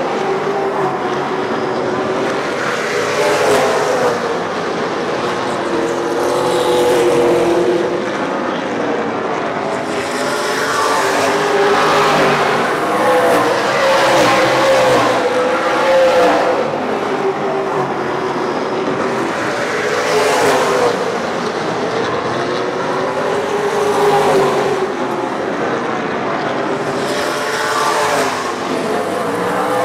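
Several late model race cars running laps on an oval, their engines rising and falling in pitch as they accelerate and lift through the turns, with a louder swell each time the pack passes, every few seconds.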